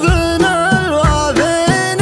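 Middle Eastern-style backing music for a sung shaila poem: an ornamented, gliding melody over a low drum beat about once a second.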